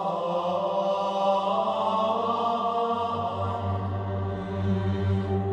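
Intro music: sustained, droning chords held without a break, with a deeper low drone coming in about halfway through.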